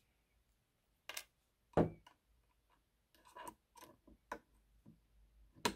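Wire cutter snipping short posts off a length of model train rail held against a jig: a sharp snap about a second in and a louder one near two seconds, a few light ticks after, and another sharp snap near the end.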